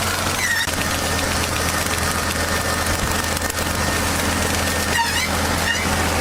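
Engine running steadily with a low drone, with a few short high chirping calls about half a second in and again near the end.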